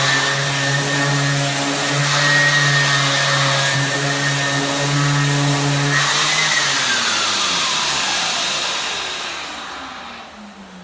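Palm sander with its attached dust-extraction vacuum running on a hardwood floor, a steady motor hum and high whine over a sanding hiss. About six seconds in it is switched off and the motor whine falls steadily in pitch as it spins down.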